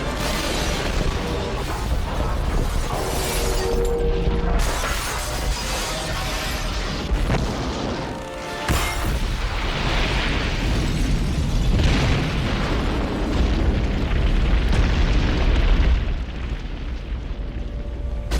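Action film soundtrack: a dramatic score under deep rumbling booms and explosions, with sharp hits about four and a half and nine seconds in.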